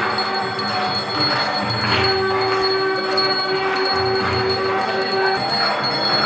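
Aarti music with temple bells ringing continuously, low beats about once a second and a steady held tone underneath.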